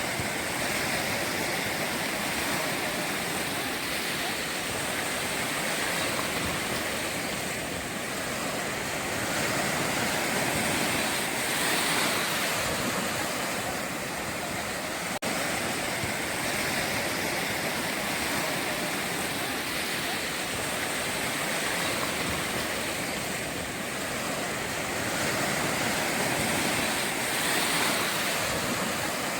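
Ocean waves breaking and washing onto the shore: a steady rush of surf that swells and eases every ten seconds or so.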